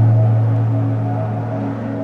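Film score: a deep, steady low drone that slowly fades, with faint wavering higher tones above it.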